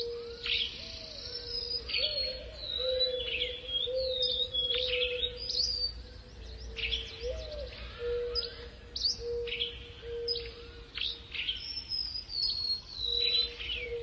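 Morning chorus of several backyard birds: quick high chirps and whistled notes, some sliding downward, overlapping one another, over a lower note repeated every second or so.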